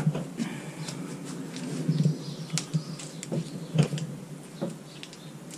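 Rustling of rotted hood fabric and horsehair padding, with scattered small clicks and taps, as the rear window frame of a convertible hood is wiggled loose by hand.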